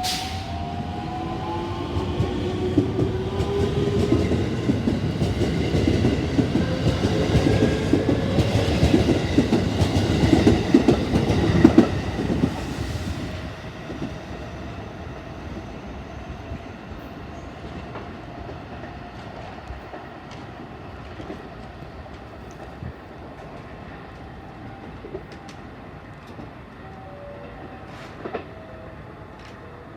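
A JR West electric train passing through the station: a rising motor whine and wheels clacking over the rail joints, loudest about twelve seconds in, then dying away quickly as the train clears.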